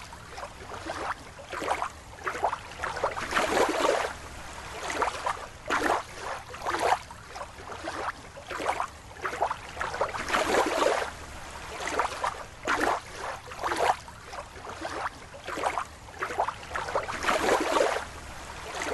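Water sloshing and splashing in irregular swishes, about one a second.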